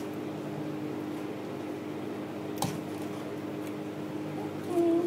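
Steady machine hum, like a fan or air-conditioning unit running, with a single light clink about two and a half seconds in and a brief low tone near the end.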